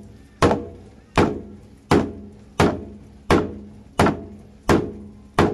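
Steady hammering: eight sharp knocks, about one every 0.7 seconds, each dying away quickly.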